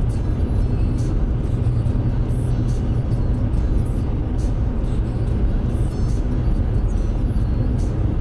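Steady tyre and engine noise of a car cruising at highway speed, heard from inside the cabin: a constant low rumble with an even road hiss above it.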